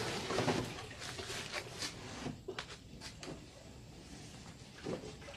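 Rustling, scuffing and light knocks against wooden boards as a large reticulated python is handled and shifted inside a wooden enclosure. The noise is loudest in the first second.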